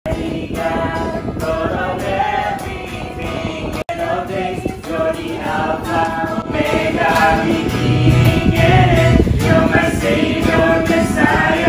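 Music with a choir singing, starting abruptly out of silence, with a momentary dropout about four seconds in.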